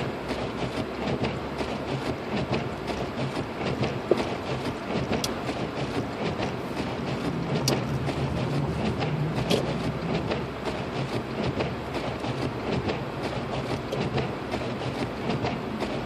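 Road noise inside a Lexus IS250 AWD driving on snow: a steady rumble of tyres and engine with a low hum, and a few sharp clicks.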